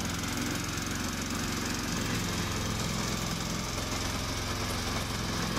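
Gasoline engine of a remote-controlled tracked slope mower running steadily just after an electric-start from the control panel button.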